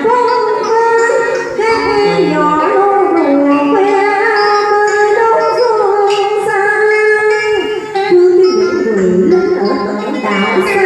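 Vietnamese đờn ca tài tử music: traditional string instruments playing a melody of held notes that slide between pitches, with a woman singing ca cổ.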